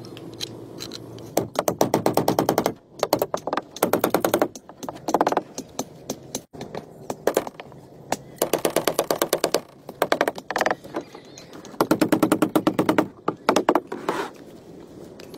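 Repeated short bursts of rapid rattling impacts, about six of them, each lasting a second or so: a power tool working into the wooden frame of a plastic-drum boat.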